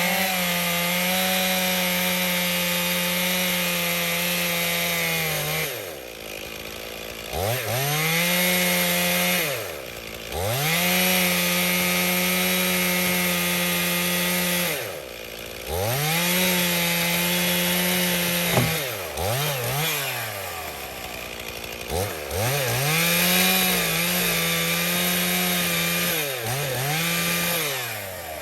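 Stihl chainsaw cutting wood in repeated bursts at full throttle, each held for a few seconds before dropping back to idle, with a couple of quick blips of the throttle partway through.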